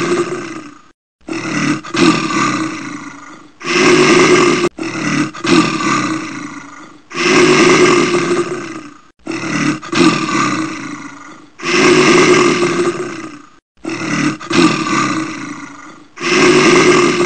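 Deep animal roars, one long roar after another with short gaps, about every two seconds in an even, repeating pattern.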